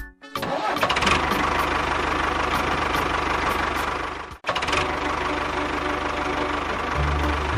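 A small engine running steadily with a dense mechanical clatter. It cuts out abruptly about halfway through and comes straight back.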